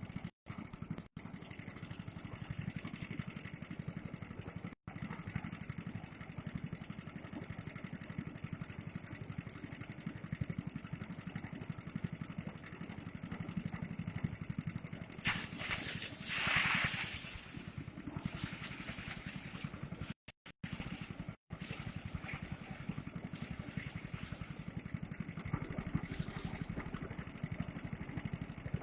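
Small engine driving a rice thresher, running steadily, with a louder hissing rush for about two seconds midway.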